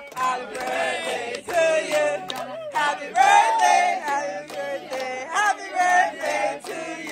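A group of people singing and chanting together, loud and lively, over the hubbub of a crowded room.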